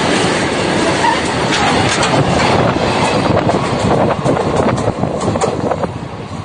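Train passing at very close range: a loud, dense rumble of the rolling wagons with rapid clattering clicks of the wheels, easing off a little near the end.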